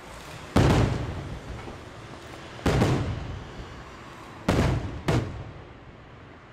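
Coloured aerial firework shells bursting: four sharp bangs, each trailing off in an echoing rumble, the last two about half a second apart.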